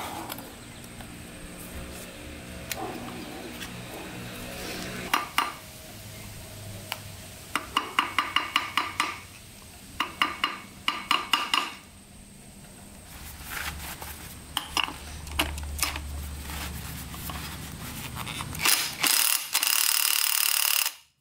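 Sharp metal-on-metal hammer taps on a tool held against a motorcycle clutch hub, in quick runs about a third and halfway in. Near the end a cordless drill runs loudly on the clutch hub nut for a couple of seconds and cuts off suddenly, its battery running low.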